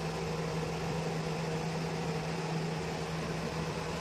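Steady machine hum with a constant low tone and an even hiss above it, unchanging throughout.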